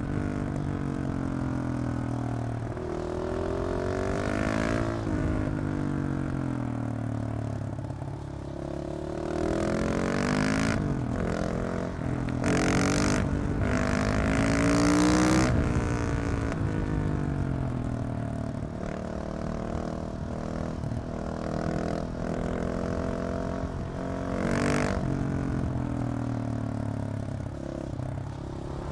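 KTM 690 SMC R single-cylinder engine with a LeoVince decat exhaust, repeatedly accelerating through the gears and rolling off, its pitch rising and falling again and again.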